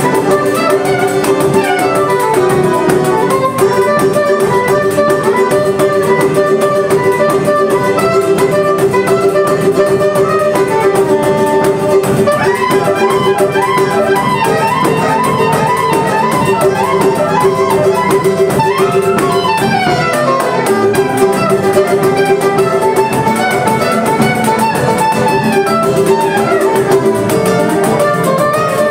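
Live acoustic choro group playing a baião: a soprano saxophone carries the melody over acoustic guitar, cavaquinho and pandeiro.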